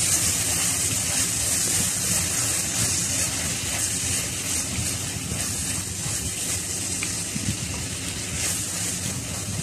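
Sliced onions, tomatoes and green chillies frying in oil in a clay pot, a steady sizzling hiss as a spatula stirs them.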